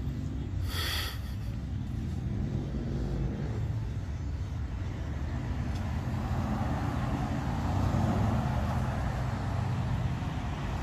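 Steady low rumble of road traffic, swelling around eight seconds in as a vehicle passes, with a brief hiss about a second in.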